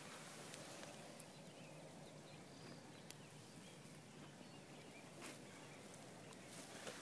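Near silence: faint outdoor ambience with a couple of faint clicks.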